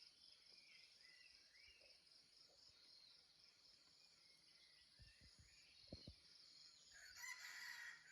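Faint outdoor ambience: insects trilling in a fast, even pulse, with a few short bird chirps. About seven seconds in comes a louder, drawn-out animal call.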